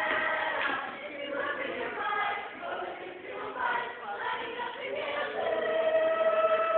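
A chorus of young voices singing a show tune together, holding one long note near the end.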